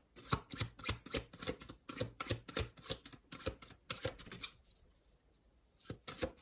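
Tarot cards being shuffled by hand: a quick run of light card snaps and riffles for about four seconds, then a short pause and a few more snaps near the end.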